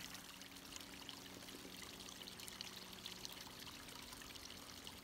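Faint, steady trickle of running water from a small stream or spring.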